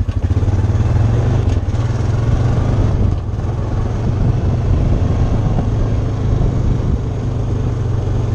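2007 Honda Rancher 420 ATV's single-cylinder four-stroke engine running steadily as the quad is ridden at low speed, easing off briefly about three seconds in.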